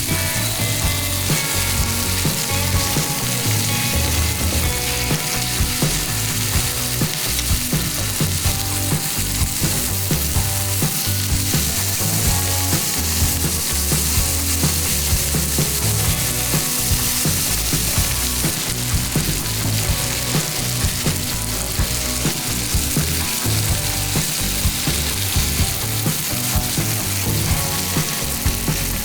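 Chicken sizzling steadily as it cooks over heat.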